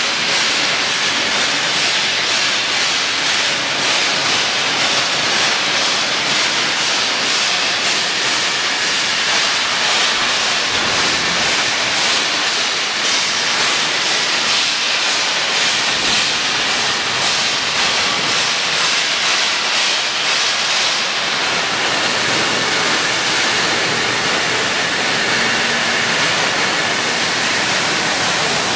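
Steady hiss of a plasma welding arc running along the seam of a stainless steel tank.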